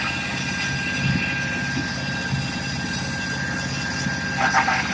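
A 40 hp diesel wood chipper running steadily: the diesel engine's even low pulse with a steady whine above it, and a brief rattle near the end.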